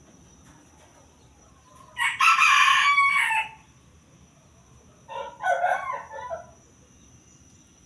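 A rooster crowing once, about two seconds in. About three seconds later comes a shorter, lower, broken call from a chicken.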